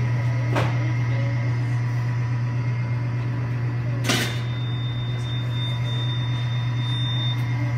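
Steady low machine hum with two sharp clicks, a faint one about half a second in and a louder one about four seconds in.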